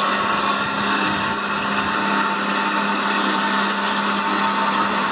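12-volt DC motor of a homemade solar tracker running steadily as it turns the panel array, a constant hum with a higher whine above it.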